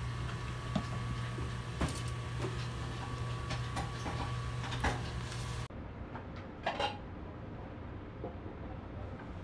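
Kitchen clatter: light clicks and knocks of utensils and containers being handled over a steady low hum. A little past halfway the hum stops and the sound turns duller, with a couple more clicks.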